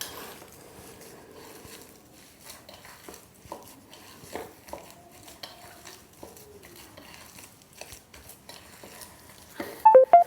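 A spoon stirring spices into mashed boiled potatoes in a bowl, with scraping and light clinking against the bowl. Near the end come a few loud, sharp taps of the spoon on the bowl.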